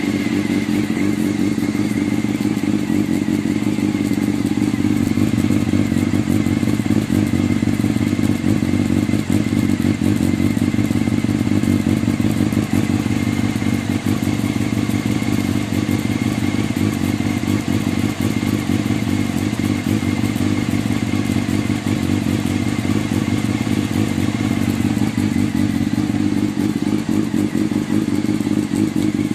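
Honda CBR600F2's inline-four engine idling steadily, with an extraneous clattering noise that the owner takes for a knock in the engine.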